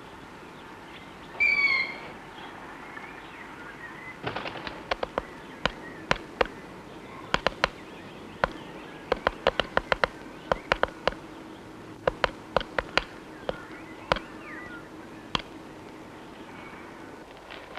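A chickadee gives one short call, then a long run of sharp, irregular taps and clicks in quick clusters lasting about eleven seconds, typical of a small bird pecking and moving about at a nest box.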